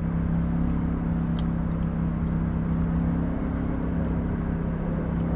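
Steady low mechanical hum with a thin, faint high whine over it, and a few light clicks.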